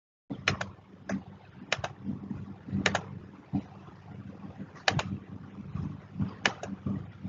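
Irregular sharp clicks of a computer mouse and keyboard picked up by a desk microphone, several coming in quick pairs, over a steady low hum.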